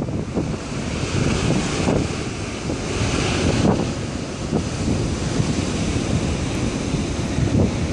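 Strong gusting wind buffeting the microphone over the noise of a rough sea's surf.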